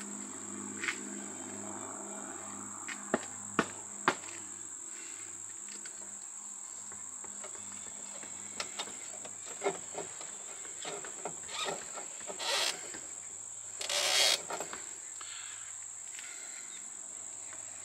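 A steady, high-pitched insect trill with scattered small clicks and rustles from electrical wires and twist-on wire nuts being handled. The loudest is a short scraping rustle about fourteen seconds in.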